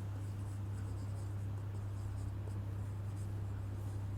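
Faint scratching strokes of someone writing by hand, over a steady low electrical hum.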